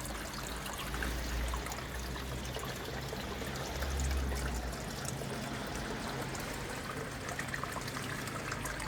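Water trickling steadily, as from a fish tank's filter outlet, over a low steady hum.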